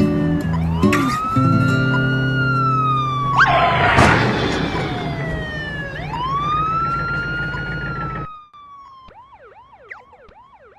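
Police siren sound effect wailing, a slow rise and long fall twice, over background music. About eight seconds in the music cuts off and a fainter, faster yelping siren follows.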